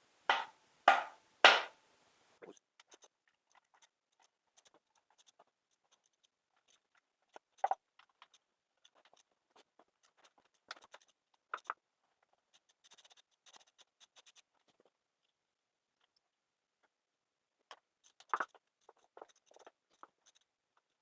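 Hand tools and metal engine parts being handled during an engine teardown: three sharp knocks in quick succession at the start, then scattered faint clicks, clinks and scrapes.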